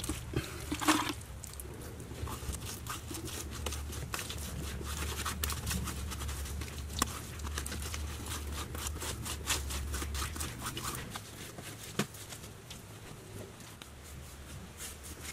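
Soft scattered clicks, scrapes and pats of hands working wet clay, with a low steady hum through the middle.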